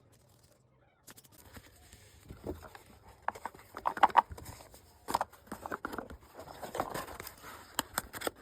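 Sticker box and its paper and plastic packaging being handled and opened: rustling and crinkling with many sharp clicks and taps, starting about a second in.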